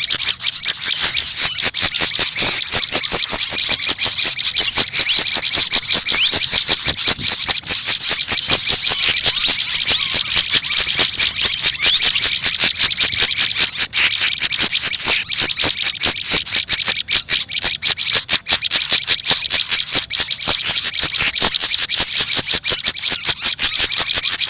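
Small songbirds, a fantail (sikatan kipas) and a prenjak lumut, chirping nonstop in a fast, dense run of high-pitched notes.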